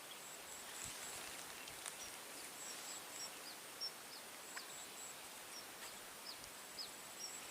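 Faint outdoor wildlife sounds: a thin, high buzz that breaks into short pulses at times, and from about two seconds in a run of short, high chirps that each slide downward, roughly two a second.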